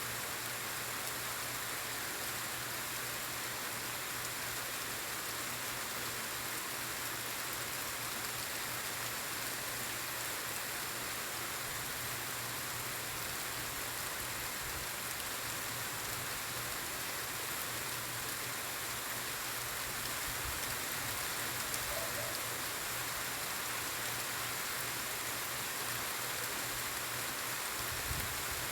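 Steady quiet rain falling, an even hiss of drops on surfaces that does not let up, with a faint low hum underneath.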